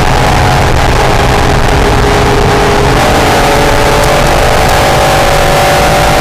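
Honda NSX's V6 engine running hard under load, with heavy wind and road noise over it. The engine note holds roughly level for the first few seconds, then climbs slowly as the car accelerates.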